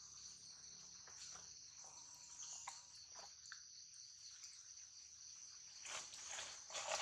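Steady high-pitched chorus of insects, with a few faint, brief sounds and a louder short one near the end.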